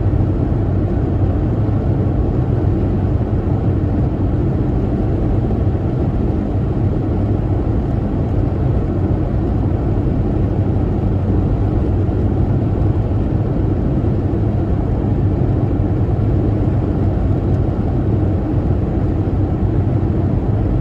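Steady road and engine noise heard from inside a moving car's cabin at highway speed.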